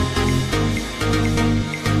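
Electronic dance music with a heavy bass line and a steady beat, about two beats a second.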